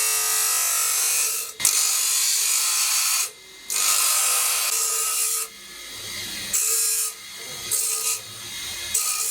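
Steel being abraded in knife shaping: a loud, hissing rasp in long passes of one to two seconds, breaking off briefly twice, then quieter, shorter passes.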